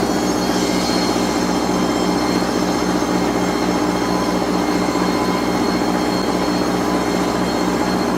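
A large machine running steadily, with a hum that pulses about four times a second and a steady high whine.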